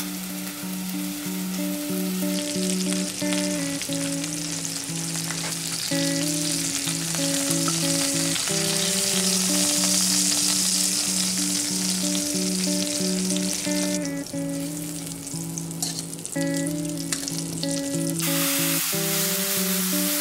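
Beef short ribs sizzling in hot fat as they brown in a pot, a steady high hiss that drops out for a few seconds past the middle and comes back near the end. Background music with sustained notes plays throughout.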